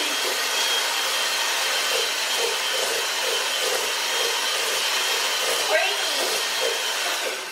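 Electric hand mixer running steadily, its beaters whirring through creamed butter, sugar and egg in a stainless steel bowl; it switches off near the end.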